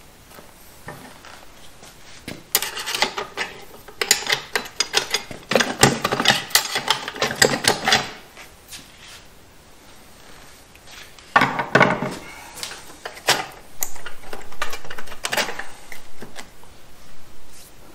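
Metal clicking and clattering inside a TH350 automatic transmission case as a tool is poked in and the clutch drum and parts are worked loose by hand, in two runs of rapid knocks with a pause between.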